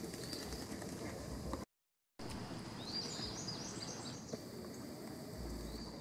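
Small songbirds chirping, with a quick run of high chirps about three seconds in. The sound cuts out completely for half a second just before.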